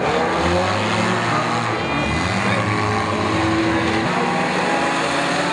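Several banger racing car engines running and revving at once, their pitches rising and falling over one another.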